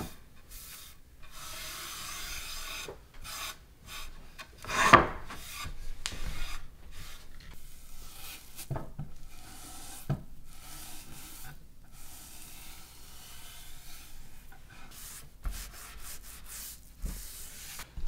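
Cloth rubbing board butter into a walnut cutting board: stretches of soft scrubbing strokes with short pauses between them. One brief louder sound comes about five seconds in.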